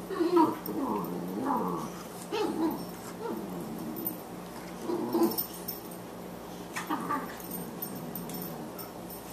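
Boxer puppy and adult Boxer at play: short play growls and whines sliding up and down in pitch, in several bouts, loudest in the first two seconds.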